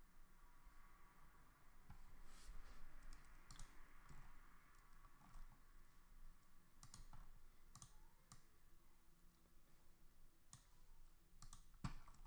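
Faint, scattered clicks of a computer mouse and keyboard, about eight in all, over quiet room tone.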